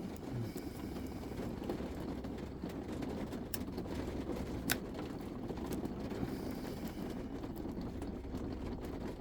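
A lock pick and tension tool working the pins inside a lock, giving a few sharp metallic ticks, the clearest a little before the middle, over a steady low hum.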